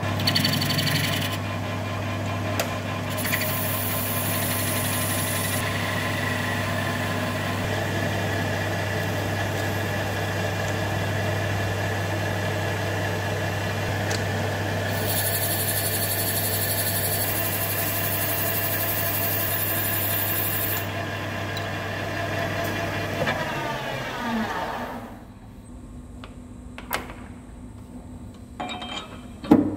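Toolmaster centre lathe running while an insert tool faces the end of a stainless-steel bar. The cutting hiss comes in twice, briefly near the start and longer mid-way. Near the end the spindle winds down and stops, followed by a few sharp clicks.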